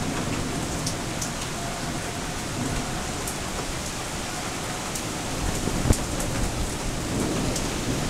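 Heavy, steady rain falling, a continuous hiss with scattered sharp ticks; one louder tick stands out about six seconds in.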